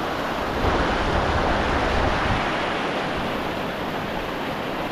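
Fast-flowing river water rushing steadily, with wind rumbling on the microphone.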